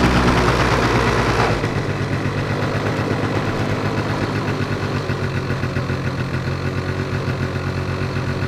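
Yamaha Mint scooter's two-stroke engine running lean with the choke off. It is loud at first, then drops about a second and a half in to a steady, raised idle. The revs are slow to come down, with a drawn-out running sound.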